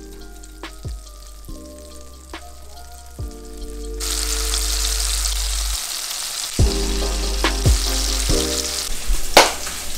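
Spanish mackerel fillets frying in melted butter in a pan: a steady sizzle that starts abruptly about four seconds in. Before it come a few light clicks and taps, and a sharper click near the end.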